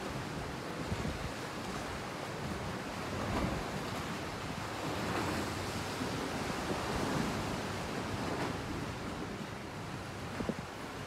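Seawater washing and swelling around a slowly drifting boat inside a sea cave, rising and falling in gentle surges, with wind rumbling on the microphone.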